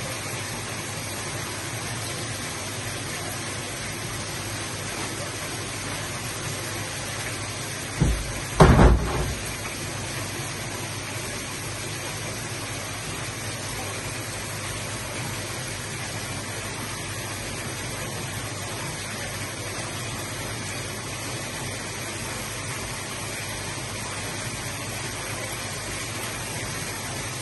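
Steady rushing noise like running water, broken about eight seconds in by a short low thump and then a louder cluster of low thumps.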